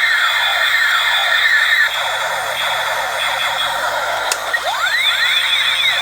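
Electronic chirps and sliding tones from toy sound chips, many overlapping as they swoop up and down over a steady high tone, thin with no bass. A sharp click sounds a little after four seconds in.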